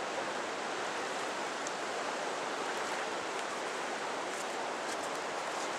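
Steady, even wash of sea surf on a sandy beach.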